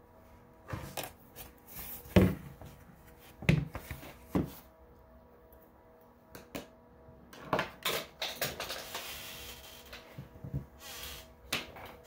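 Handling noise as the painting setup and camera are moved and repositioned: a series of irregular knocks and clicks on a wooden table, the loudest about two seconds in, with a brief rustle about eight seconds in.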